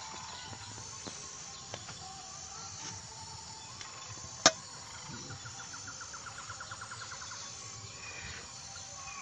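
A large knife working a roast chicken in a steel bowl, with a few light clicks and one sharp metallic clink about four and a half seconds in, over steady chirring of night insects. Just after the clink a rapid pulsed chirp, about ten pulses a second, runs for about two seconds.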